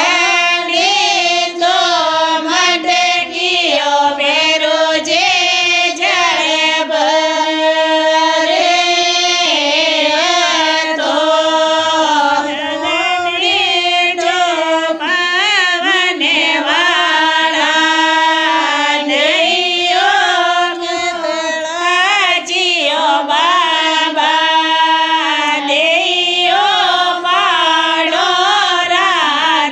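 Women singing a traditional Marwari ratijoga devotional folk song to the deity Bheruji (Khetlaji), a continuous high melodic line that sounds like a group singing together.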